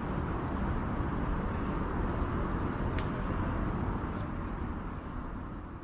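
Steady outdoor background noise: a low rumble with hiss above it, with a couple of faint, short, high chirps.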